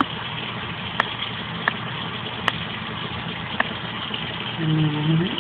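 Tap water running steadily from a kitchen faucet into a sink over a kitten being bathed, with a few sharp clicks along the way. Near the end a person makes a short low hum.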